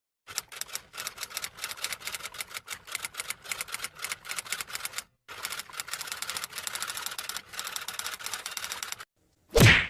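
Typewriter keys clacking in fast, irregular strokes, in two runs with a brief pause between them. Near the end comes a short, loud swoop falling steeply in pitch.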